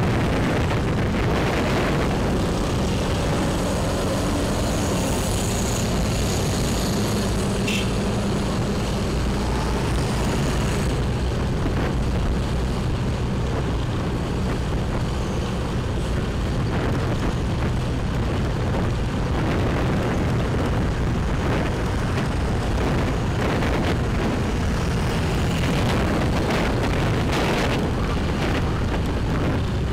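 Steady wind rush over the microphone with the low hum of a motorbike engine, riding along at a constant pace.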